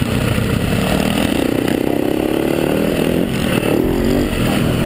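Dirt bike engine heard from the bike's own onboard camera while riding, its pitch climbing as the throttle opens, dropping back, then climbing again about three seconds in.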